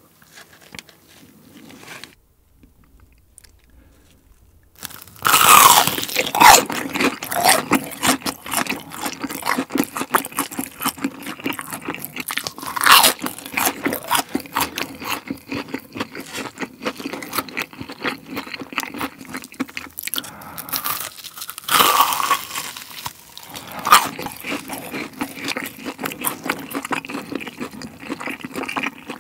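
Close-miked crunching and chewing of crispy fried food, with loud crackling bites. It starts about five seconds in and goes on densely, with several louder bites.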